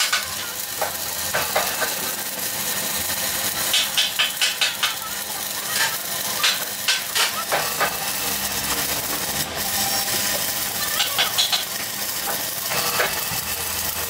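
Stick (shielded metal arc) welding: the electrode's arc sizzles steadily with clusters of sharper crackling pops as a replacement centre plate is welded into a steel truck rim.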